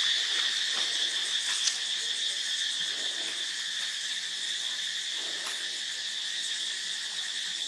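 Insect chorus: a steady, unbroken high-pitched drone.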